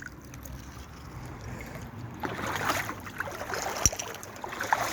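Water sloshing and splashing in a shallow brook as boots wade through it, louder from about two seconds in, with one sharp click near the end.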